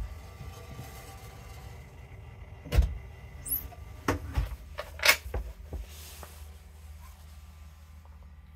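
The countertop lid of a top-loading freezer being handled: a few knocks and clunks between about three and five seconds in, the loudest near five seconds, over a steady low hum.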